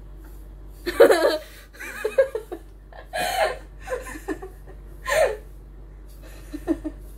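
Children giggling and laughing in short bursts, about six times, with no words.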